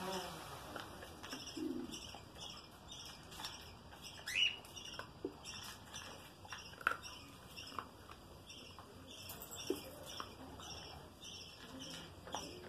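Small caged birds chirping repeatedly, with one louder rising call about four seconds in. A few sharp clicks and knocks come from a plastic dish being handled at the wire cage.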